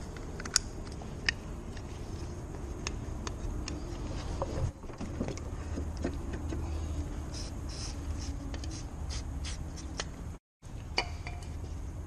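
Small sharp clicks and light scraping as a Nissan Micra K11's plastic rear outside door handle and its metal linkage are turned and fitted in the hands, over a steady low background rumble. The two sharpest clicks come within the first second or so, and the sound drops out for a moment near the end.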